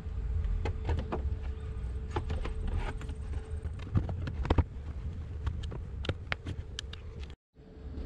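Plastic pillar trim panel in a Volkswagen Passat wagon being pushed and worked onto its retaining clips: scattered clicks and knocks over a low rumble, cutting off briefly near the end.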